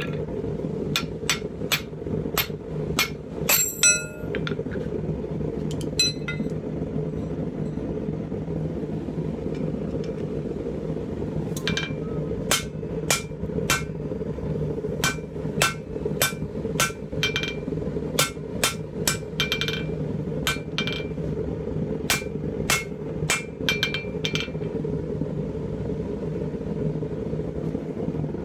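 Hand hammer forging a red-hot pipe tomahawk head on an anvil, each blow ringing briefly. A handful of blows come in the first few seconds, then a pause, then a run of about twenty quick blows over some twelve seconds. A steady low hum runs underneath.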